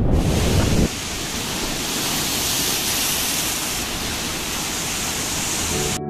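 Wind buffeting the microphone as a low rumble that drops away about a second in, under a steady, even hiss.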